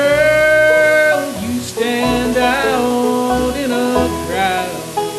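A live bluegrass band plays: banjo, acoustic guitar, mandolin and upright bass. Over the band, a man's voice sings a drawn-out line, with a long held note at the start and another phrase from about two seconds in.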